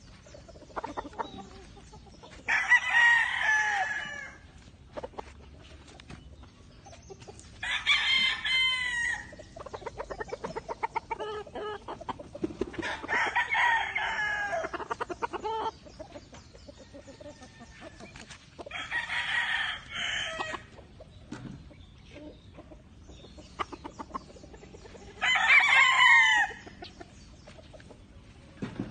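Gamecock roosters crowing: five long crows spaced several seconds apart.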